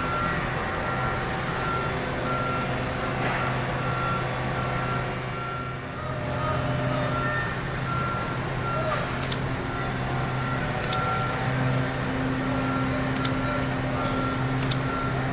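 A vehicle's reversing alarm beeping at an even pace, with its engine running as a steady low hum. Four sharp clicks or knocks come in the second half.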